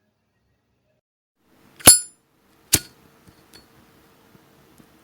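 Brass Zippo lighter's lid flicked open with its ringing metallic click about two seconds in, followed under a second later by a second sharp click and a few faint ticks.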